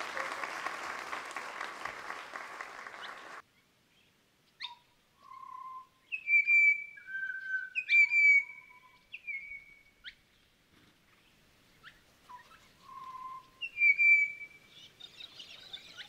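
Audience applause that cuts off abruptly about three seconds in, followed by a bird singing clear whistled notes at a few different pitches, in two short phrases with a pause between them.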